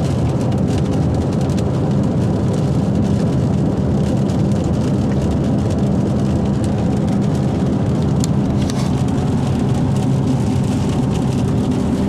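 Steady car road and engine noise heard from inside a moving car's cabin, a low, even rumble.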